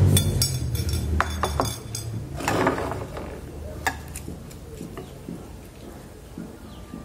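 Wooden chopsticks tapping and clinking against a ceramic rice bowl and plate in a scatter of sharp clicks, thinning out after about four seconds. A low rumble underneath fades away over the first two seconds.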